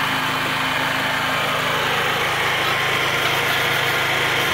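MultiPro GGA-3900 gasoline generator running steadily. About three seconds in, a wire brush starts scrubbing the welded steel plate in short repeated strokes.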